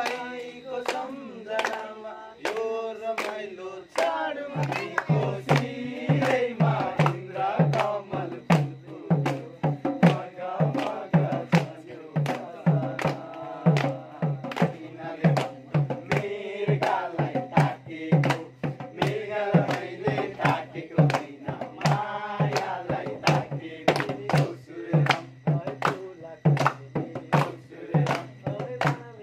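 Group of young men singing a Nepali Deusi song together, backed by a dholak drum played in a steady quick beat and by hand clapping.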